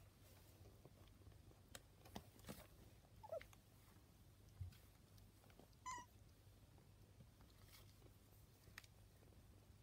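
Faint high mews from a newborn kitten: a short wavering one about three seconds in and a sharper squeak near six seconds. Soft clicks and rustles come from the cats shifting on the newspaper.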